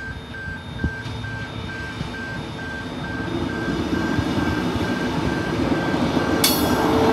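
Queensland Rail SMU suburban electric train running past a level crossing, its rumble building up and growing louder, while the crossing's warning signal beeps about twice a second. A high hiss comes in near the end.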